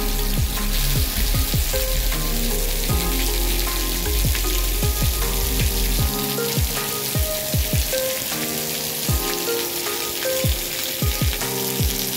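Heavy rain pouring steadily, a dense even hiss, with soft melodic background music over it. A low rumble underneath stops about halfway through.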